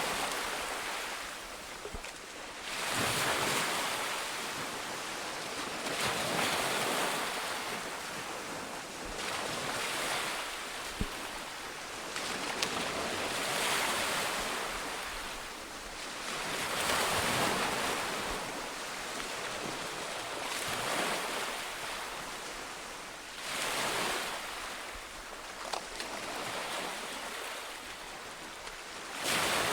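Sea waves breaking on a shore, the surf's rush swelling and falling back about every three to four seconds.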